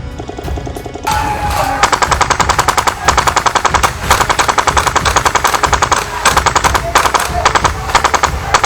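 Airsoft rifle firing rapid full-auto bursts, several strings of fast shots with short pauses between them, starting about two seconds in.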